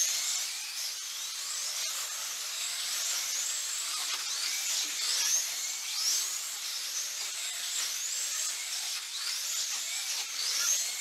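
1/24 scale slot cars racing, their small electric motors whining high. Several cars overlap, each whine sweeping up and down in pitch, again and again, as the cars speed up on the straights and slow into the banked turns.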